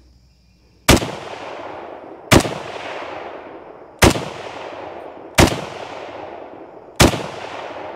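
FN FAL .308 battle rifle fired five times in slow, aimed semi-automatic shots, about a second and a half apart. Each shot is a sharp crack that trails off in a long echo.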